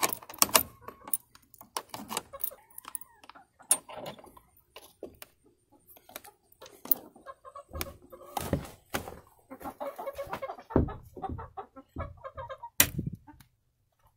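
Chickens clucking in a coop, with short pitched calls that come in a run about two thirds of the way through. Scattered knocks and rattles throughout, some as loud as the calls.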